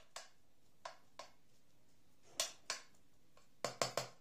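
Spatula tapping and scraping in a non-stick cooking pot while spreading chopped tomatoes, a series of short knocks, the loudest two about two and a half seconds in and three in quick succession near the end.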